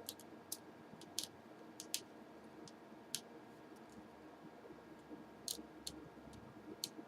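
Faint, sharp little clicks at irregular intervals, about ten in all, from a small screwdriver and tiny screws being worked while the bracket on a laptop screen panel is unscrewed.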